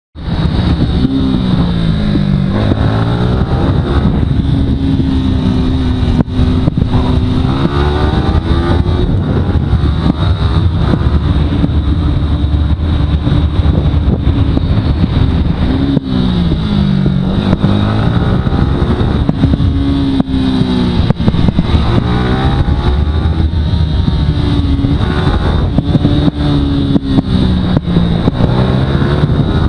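Yamaha R15 V3's 155 cc single-cylinder four-stroke engine ridden hard around a track. It revs up, drops back and climbs again over and over through the corners and gear changes, with a constant rush of wind noise underneath.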